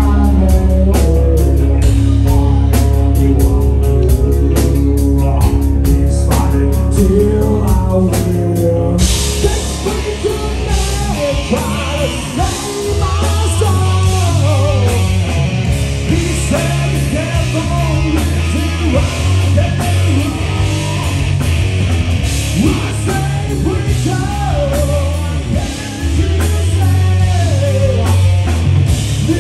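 Live hard-rock band playing loud: distorted electric guitar, bass and drums. About nine seconds in the passage changes to a busier section with bending lead lines over the band.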